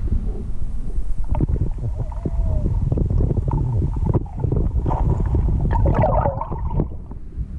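Muffled low rumble of moving water heard through a submerged camera, with scattered small clicks and brief wavering gurgles about two and six seconds in.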